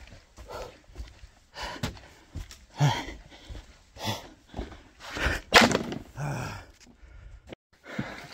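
Footsteps on a dirt trail and a man's breathing as he walks, with short breathy exhales, some voiced, about once a second.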